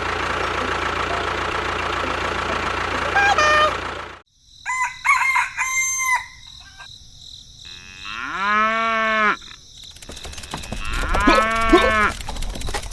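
A steady machine noise for about four seconds that cuts off suddenly, followed by a series of long, pitched animal calls, two of them drawn out and held steady.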